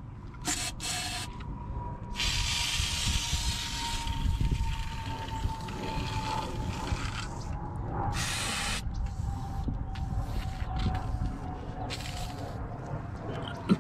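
Aerosol can of PB Blaster penetrating oil hissing out through its straw onto a rusted brake drum and axle hub, soaking the seized brakes. Two short bursts at the start, one long spray of about three seconds, then two shorter bursts later.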